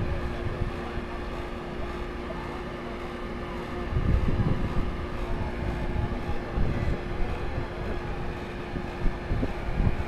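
A steady machine hum with a low rumble, and wind buffeting the microphone in gusts about four seconds in and again near the end.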